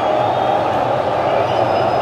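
Massed football supporters in a stadium stand making a steady, loud din of many voices.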